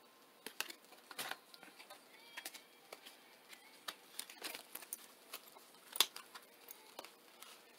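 Faint, scattered clicks and rustles of a tarot card deck being handled, cards sliding and tapping against each other, with a sharper tap about six seconds in.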